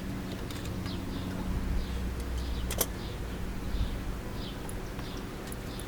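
Rear drum-brake hardware being worked by hand: one sharp metallic click near the middle as a shoe hold-down clip or spring comes free. A steady low hum runs underneath, with short faint high chirps repeating.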